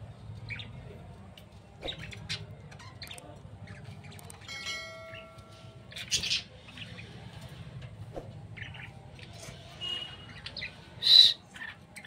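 Budgerigars chirping: short, scattered chirps and calls, the loudest one near the end, with a brief held note a little before the middle.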